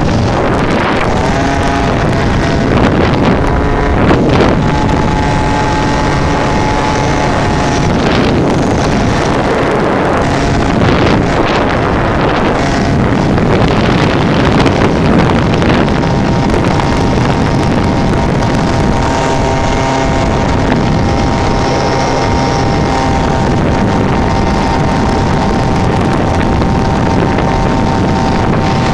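Small 50cc two-stroke engine running at a steady cruising pitch while riding, its note shifting a few times. Heavy wind noise buffets the microphone throughout.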